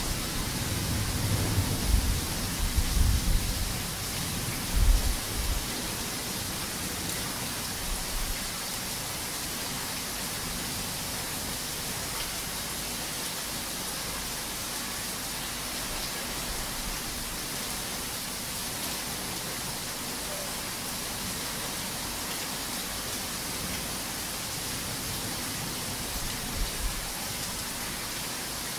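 Heavy rain falling in a steady hiss, with thunder rumbling low over the first few seconds before dying away. A short low rumble of thunder comes again near the end.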